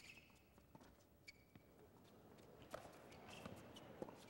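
Faint tennis rally: a handful of sharp racket-on-ball strikes spread through, with players' footsteps and short shoe squeaks on the hard court.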